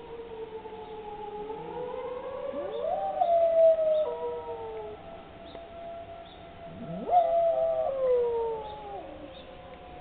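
Tornado warning siren wailing in slow pitch glides during a test, with a dog howling along to it twice: each howl sweeps quickly up in pitch and holds, once about three seconds in and again about seven seconds in.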